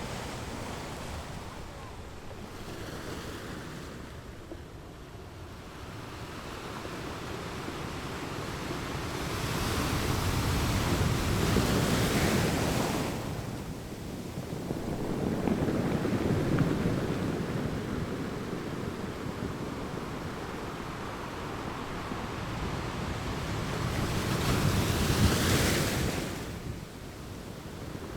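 Ocean waves breaking and washing on the shore, swelling and fading in slow surges, the loudest about halfway through and again near the end, with some wind on the microphone.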